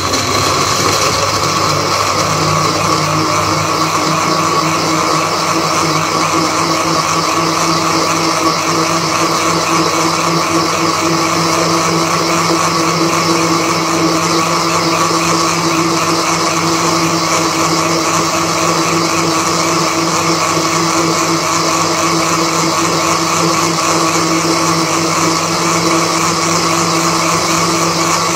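Countertop electric blender running at a steady speed with a steady, even whine, blending chopped peaches, milk, sugar and ice cubes into a milkshake.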